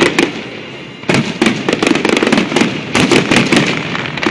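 Aerial fireworks bursting in quick succession: many sharp reports and crackling over a rumbling background, most dense from about a second in until near the end.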